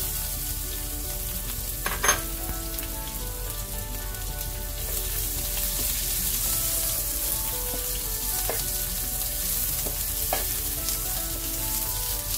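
Sliced onions and curry leaves sizzling in hot oil in a nonstick frying pan as they are stirred with a spatula. A few sharp knocks of the spatula on the pan, the loudest about two seconds in.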